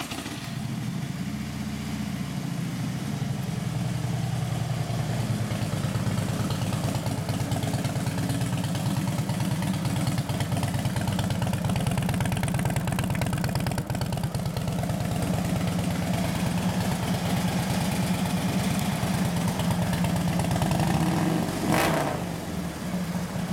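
Harley-Davidson Street Glide's air-cooled V-twin idling steadily just after being started, heard close to the exhaust. There is one brief louder swell near the end.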